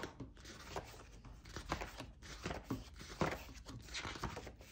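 Paper pages of a large paperback colouring book being turned by hand one after another: a quick string of rustles and flaps.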